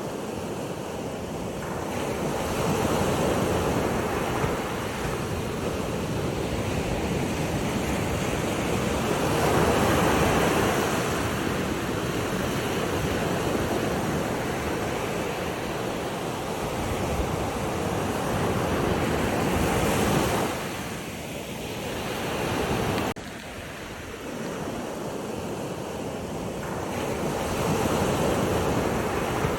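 Sea waves washing in, a continuous rushing that swells and eases every several seconds, with an abrupt drop in level about two-thirds of the way in.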